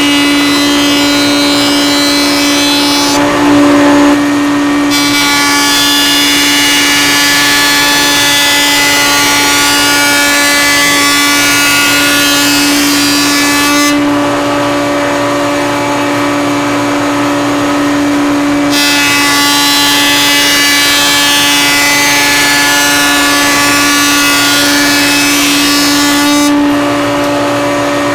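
Router in a table saw/router combination running steadily with a constant whine. A vertical raised-panel bit cuts oak panels in passes, with a hissing cutting noise that comes and goes three times: breaking off about three seconds in, again for several seconds in the middle, and near the end.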